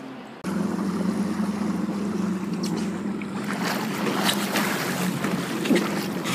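Jet ski engine running with a steady hum, coming in suddenly about half a second in, with water splashing and wind on the microphone.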